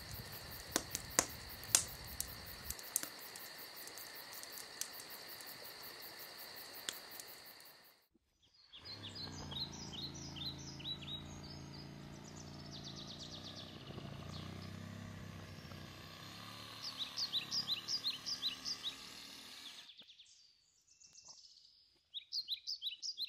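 Campfire crackling, with scattered sharp pops over a steady hiss. After a few seconds it gives way to small songbirds chirping and trilling in quick series, over a faint low hum.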